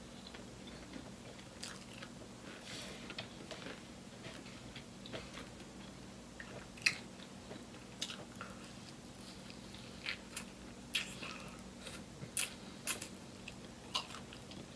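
Close-up chewing of crispy fried food: soft wet mouth sounds broken by scattered crunches and smacks, the sharpest coming every second or two in the second half, over a faint steady hum.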